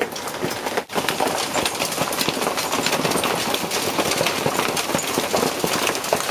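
Hail pelting a sailboat and the sea around it: a dense, continuous rattle of countless small hits, with a brief break about a second in.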